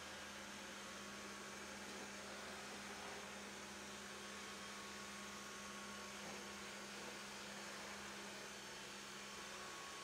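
Robot vacuum cleaner running: a faint, steady hum with an even hiss over it.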